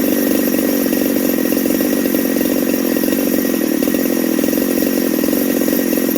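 Husqvarna 372XP chainsaw's two-stroke engine running steadily at an even speed, loud, with no revving. The freshly built saw is on its first run with its carburettor being tuned.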